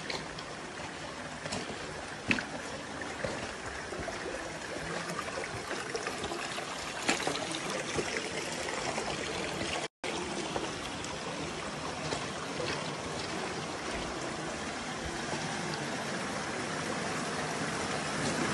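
Shallow mountain stream trickling over stones and gravel: a steady rush of water with a few sharp clicks. The sound cuts out for an instant about halfway through.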